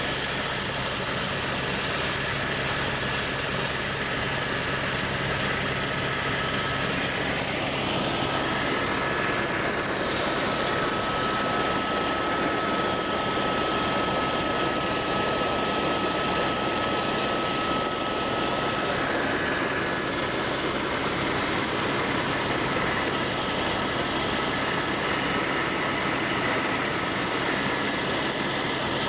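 Light aircraft in flight: a steady engine and propeller drone with a few thin whining tones that shift in pitch about eight seconds in and again near nineteen seconds.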